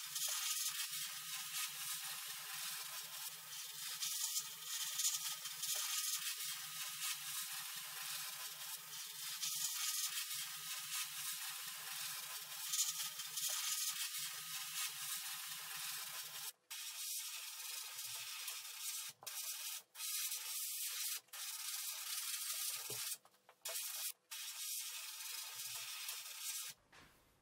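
Compressed-air gravity-feed spray gun hissing steadily as it sprays paint. In the second half the trigger is let go several times, cutting the hiss off for a moment each time.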